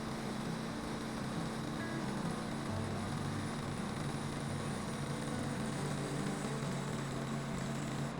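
Portable band sawmill's engine running steadily, mixed with background music that has low sustained notes.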